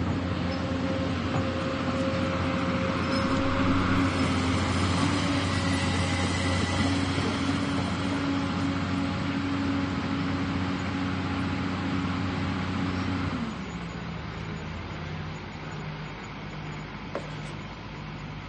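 Excavator's diesel engine running steadily, then about two-thirds of the way through dropping to a quieter, lower run with a pulsing beat.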